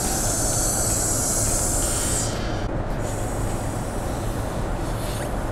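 Steady drone of a Boeing 787-9 cabin in flight, with the hiss of breath being blown into an inflatable travel pillow's valve that stops about two seconds in.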